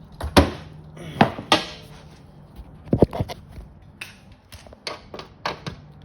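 Sharp metal knocks and clinks from handling a stove door and its glass panel: a few hard knocks in the first second and a half, a pair around the middle, then a run of lighter clicks.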